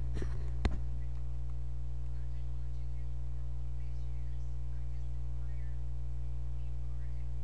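Steady electrical mains hum picked up by the computer recording setup, a low even buzz, with two short clicks in the first second.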